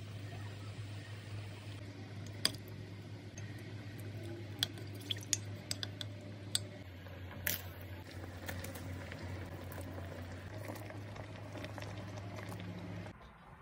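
Broth in a clay pot stirred with a wooden spoon, with several light knocks of the spoon against the pot, over a steady low hum. The hum stops near the end.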